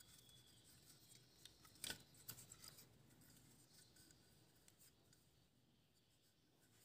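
Faint clicks and rubbing from a SLOVIC tripod phone-holder clamp being handled and adjusted, with the clearest click about two seconds in; near silence over the last couple of seconds.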